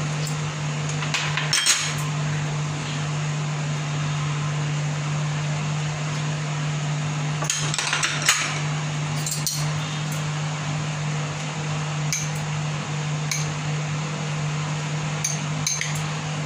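Glass bowls clinking together as chopped fruit is tipped into a glass bowl of custard, with sharp clinks about two seconds in and again around eight seconds. Scattered lighter clinks follow, one of them as a spoon goes into the bowl near the end. A steady low hum runs underneath.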